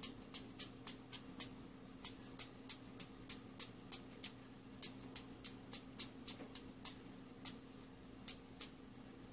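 Sharp ticking clicks at uneven intervals, about three a second at first and fewer toward the end, over a faint steady hum.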